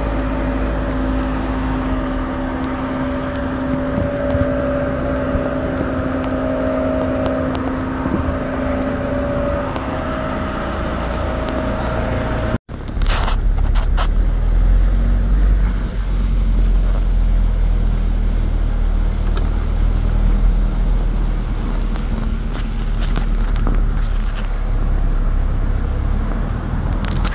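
Car driving, heard from inside the cabin: a steady low rumble of engine and road noise with a few scattered clicks and rattles. Before a brief drop-out about halfway in, the drone carries a couple of held, steady tones.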